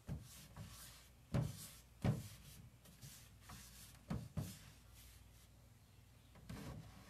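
A rag wiping dark furniture wax off the painted wooden drawer fronts of a hutch. The drawers give a few soft, irregular wooden knocks as they shift under the rag, with faint brushing swipes between the knocks.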